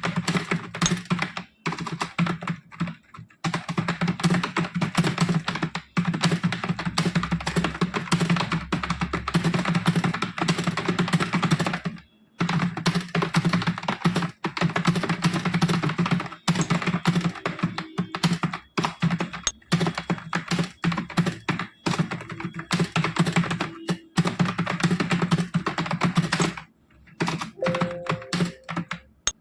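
Fast, continuous touch-typing on a computer keyboard, a rapid run of key clicks broken by brief pauses about 12 seconds in and near the end. Music comes in over the last couple of seconds.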